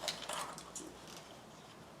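A few light clicks and handling sounds of hand work on engine parts, mostly in the first second, then a faint, even hush.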